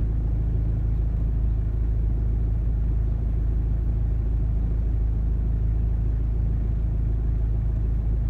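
Steady low rumble of a vehicle travelling along a street: engine and road noise, unchanging throughout.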